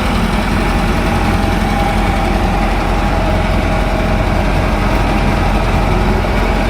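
Old combine harvester's engine running steadily at idle.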